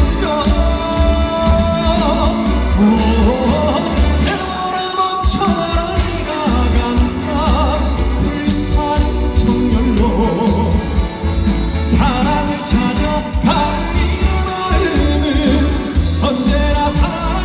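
A man singing a Korean trot song into a microphone over loud band backing with a pulsing bass beat, amplified through a stage PA.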